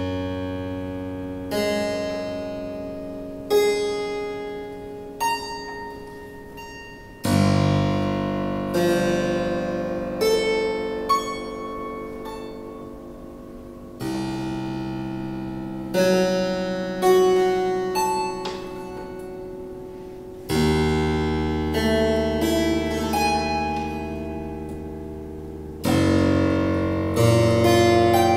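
Harpsichord strings sounded by hand inside the open case rather than from the keyboard: clusters of several notes start together about every one to three seconds, each with a sharp attack and a long ringing decay.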